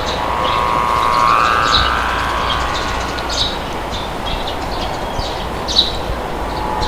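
Steady rushing wind with short bird chirps every second or so, and a drawn-out whistling tone that rises slightly during the first couple of seconds.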